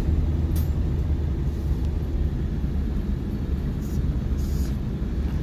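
Steady low rumble of a small bus driving on a dirt road, heard from inside the cabin: engine and road noise, with a few faint high-pitched rattles.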